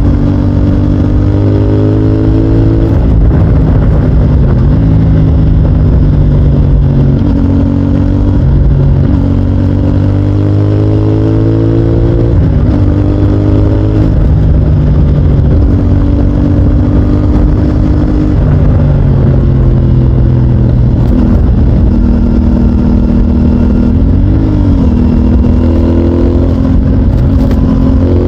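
CFMOTO 450NK motorcycle's parallel-twin engine through its stock exhaust, accelerating hard: the engine note climbs and drops at each gear change, repeatedly. Once or twice the pitch briefly dips and rises again.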